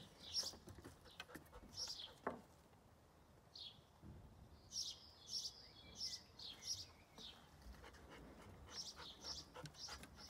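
Faint birdsong: short high chirps repeated in little clusters, with a lull around the middle.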